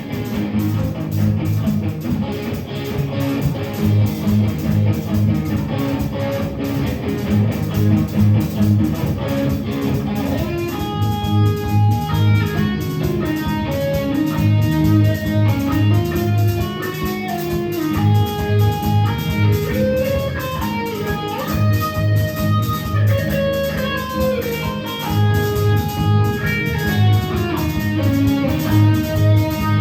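Rock band playing an instrumental passage with electric guitar and bass over a steady pulsing low end. About eleven seconds in, a lead melody of held notes stepping up and down enters.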